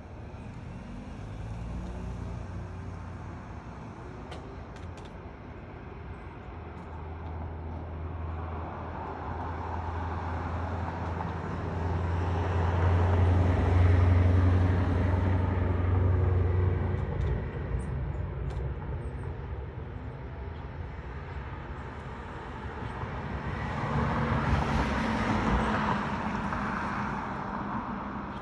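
Road traffic: a motor vehicle passes with a low engine hum, swelling up and fading away around the middle, and a second vehicle passes near the end.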